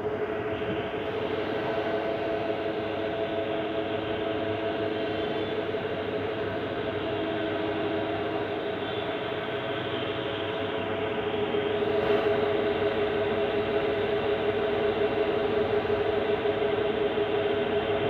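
CNC turning lathe running steadily, a machine hum with several held tones over a hiss. It grows a little louder about two-thirds of the way through.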